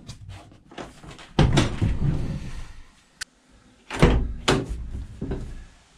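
Renault Kangoo van's sliding side door worked from inside by its awkward inner handle. First come light latch and handle clicks, then a loud clunk with a rolling rush as the door moves on its track, and two heavy thuds of the door about four seconds in.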